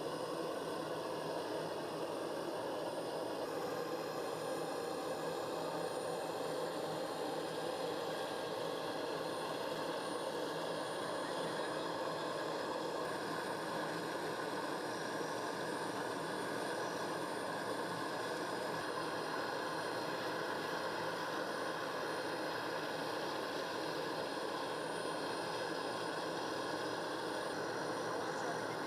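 Aircraft turbine engines running steadily on the ground: an even rush with several fixed high whines over it.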